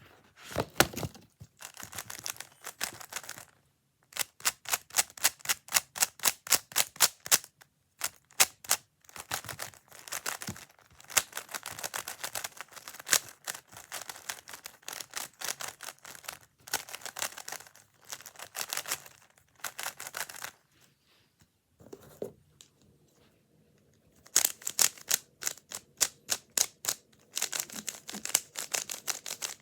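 Plastic Rubik's-type puzzle cubes being turned quickly: rapid runs of crisp clicking as the layers snap round, broken by a couple of short pauses.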